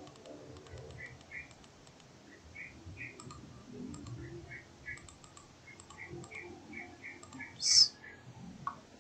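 Faint computer mouse clicks, with a bird chirping in short pairs in the background. A brief, louder high-pitched hiss comes near the end.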